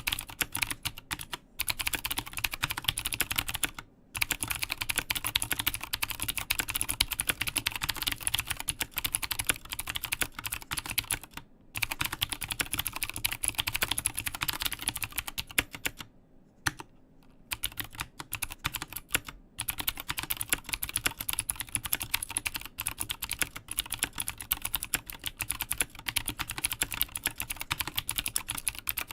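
Continuous fast typing on an Mstone Groove T aluminium-case mechanical keyboard with Cherry MX Blue switches: a dense stream of clicky keystrokes. The typing stops briefly a few times, most noticeably for about a second and a half midway through.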